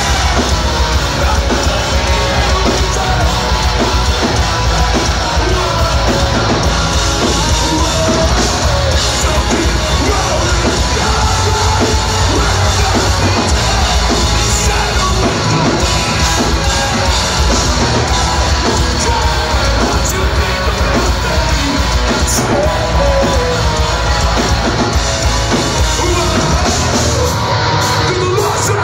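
Hardcore band playing live through a club PA: loud, dense distorted guitars and drums under shouted vocals. The low bass drops out briefly near the end.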